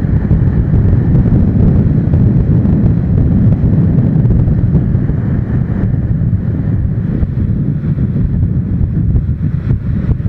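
Steady wind rush buffeting the microphone of a camera on a motorcycle riding at road speed, with the motorcycle's engine and tyre noise running beneath it.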